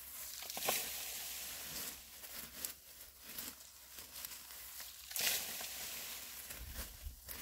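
Gloved hands scooping and tossing dry leaves, twigs and loose dirt, a crackling rustle of dead brush, with two louder grabs about a second in and about five seconds in.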